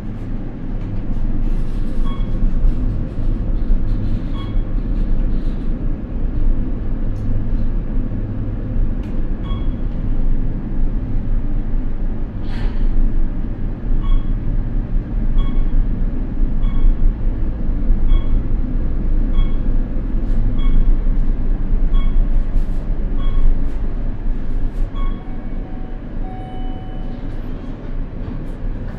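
Glass elevator cab in motion: a steady low rumble and hum of the moving car. Over it, short electronic beeps repeat about every three quarters of a second through much of the ride, with one longer tone near the end.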